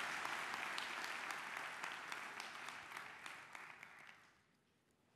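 Large audience applauding, the clapping thinning out and dying away about four seconds in.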